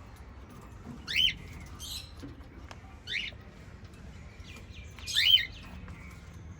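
Small pet parrot calling: four short chirps. The two loudest, about a second in and near the end, each rise and then fall quickly in pitch.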